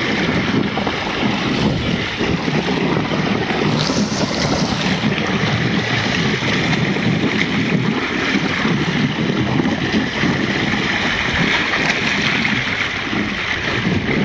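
Steady rushing and churning of water in a strong whirlpool, with wind buffeting the microphone and a brief louder surge about four seconds in.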